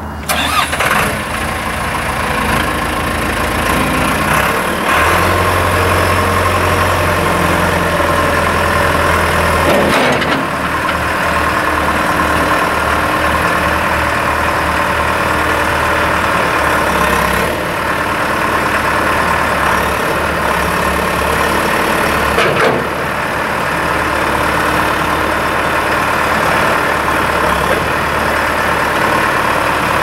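John Deere 410G backhoe's 4045TT four-cylinder turbo diesel running steadily while the front loader arms are raised and the bucket tilted hydraulically. The engine's low rumble grows heavier between about five and ten seconds in, and a few sharp knocks come through later.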